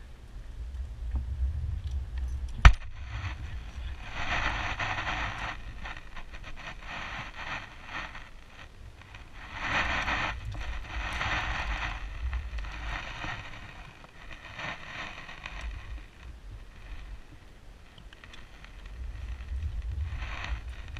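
Wind rumbling on the microphone, with stretches of rustling and scraping as fishing gear (a net, a bucket and a flag pole) is handled, and one sharp click about three seconds in.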